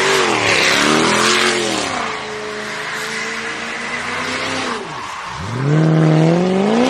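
Range Rover Sport's engine revving hard as it spins donuts, with tyres screeching loudest in the first second or two. The revs hold steady, sag about five seconds in, then climb steeply again near the end.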